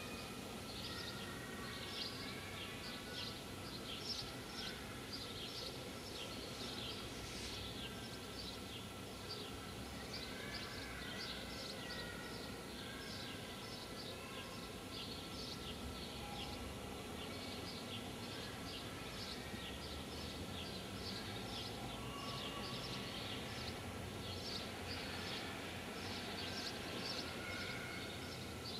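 Outdoor ambience with many small birds chirping continuously over a low, steady background noise.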